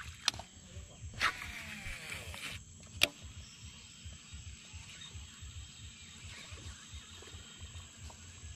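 A fishing cast: a click, then the reel's spool whirring as line pays out, its pitch falling for about a second and a half before it stops abruptly. A second sharp click follows as the reel is re-engaged. Faint steady outdoor background.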